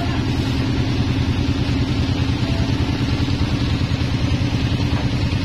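Sawmill engine running steadily with a low, fast, even chugging, not under cutting load.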